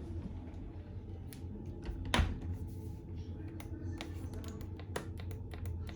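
Commercial dishwasher running with a steady low hum, under scattered light clicks and knocks and one louder knock about two seconds in.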